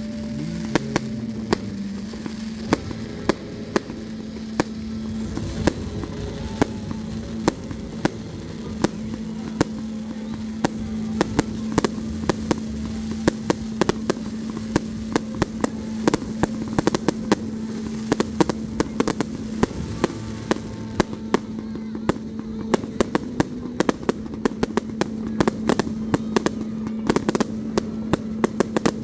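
Fireworks display: a long, rapid string of sharp bangs and crackles that grows denser in the second half, over a steady low hum.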